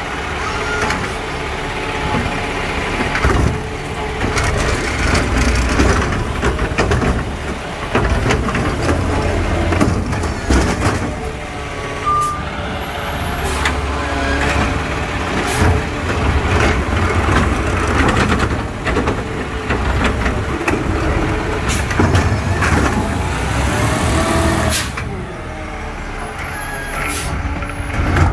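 Automated side-loader garbage truck's diesel engine running as it pulls along the curb, with air-brake hisses, clanks and the whine of its hydraulic arm. Near the end the arm reaches out and grips a trash cart.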